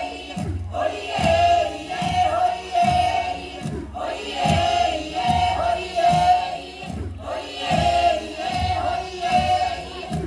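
Kanak dance chant: a group of voices chanting together in held phrases over low thumps on a steady beat, about three beats every two seconds.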